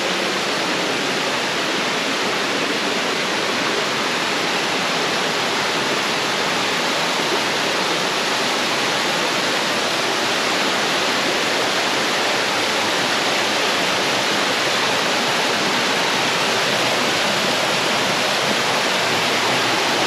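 Steady, loud rush of a jungle waterfall, water pouring over rocks, with no break or change.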